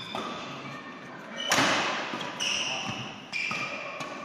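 Badminton rally: rackets striking the shuttlecock in sharp hits, the loudest about a second and a half in, with court shoes squeaking in short high squeals on the court floor.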